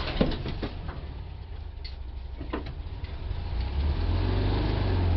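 A vehicle engine idling, its rumble growing louder about four seconds in, with a few sharp clicks and knocks in the first three seconds.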